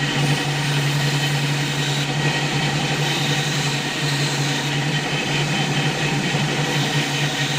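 Steady hum and hiss of an electric workshop tool motor running without a break.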